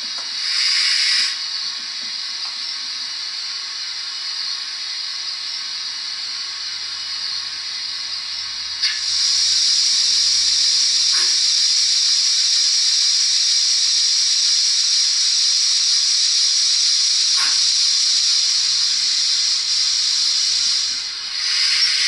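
Recorded steam sounds from a model GWR 28xx 2-8-0 locomotive's sound decoder, played through a small speaker in the tender: a steady simmering hiss, with a brief louder burst of steam hiss about half a second in. From about nine seconds in a long, loud steam hiss runs for some twelve seconds and cuts off, and another short hiss comes right at the end.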